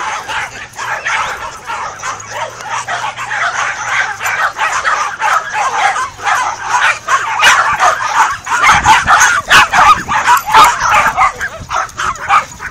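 Several small dogs yapping and barking at once in a rapid, overlapping chorus of high-pitched barks, growing louder about two-thirds of the way through.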